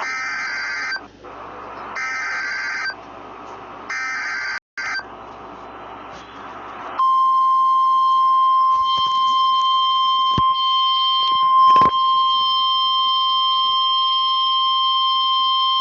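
Emergency Alert System header on weather radio: three one-second bursts of SAME data tones about a second apart. About seven seconds in, a steady single alert tone near 1050 Hz starts and holds for about nine seconds, louder than the bursts, with a couple of faint clicks. Together they announce a new warning, here a severe thunderstorm warning.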